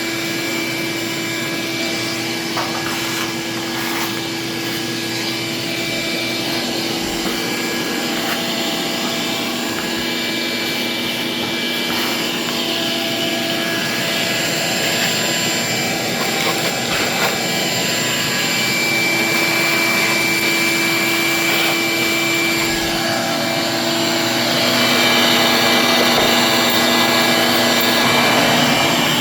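Ridgid 12-gallon wet/dry shop vacuum running continuously: a steady motor whine over rushing air, getting a little louder about two-thirds of the way in.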